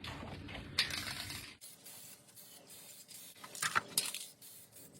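Aerosol spray paint can spraying in short hissing bursts, about a second in and again near four seconds, with light metallic clinks.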